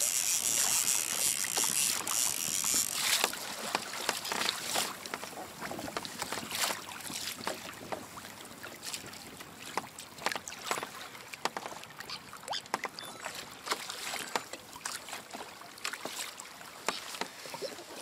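Choppy sea water slapping and splashing against a plastic fishing kayak's hull in irregular knocks. Wind rushes over the microphone for the first few seconds.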